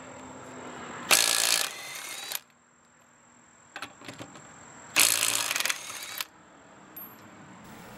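Snap-on CT761 14.4 V cordless 3/8-inch compact impact wrench hammering in reverse on car lug nuts torqued to about 100 foot-pounds. There are two bursts of a little over a second each, about a second in and about five seconds in, with a few light clicks between them as the socket goes onto the next nut.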